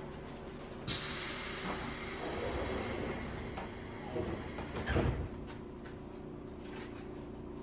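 Pneumatic equipment on a JR West 201 series electric train at a station stop: a sudden blast of compressed-air hiss about a second in, fading over about two seconds. A heavy thump follows near the middle, over the steady hum of the car's equipment.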